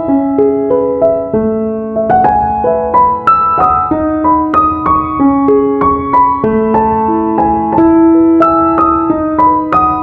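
Background piano music: a gentle melody of struck notes, a few each second, over held lower notes.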